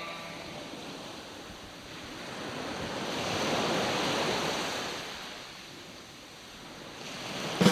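A rushing noise, like surf, that slowly swells to a peak about halfway through and fades away again.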